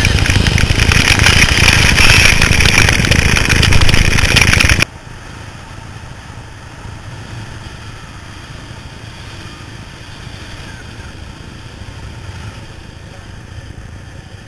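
Loud wind rush and rolling roar on the camera microphone while riding downhill behind a longboarder on a wet road, cutting off abruptly about five seconds in to a much quieter, steady rumble of skateboard wheels rolling on asphalt.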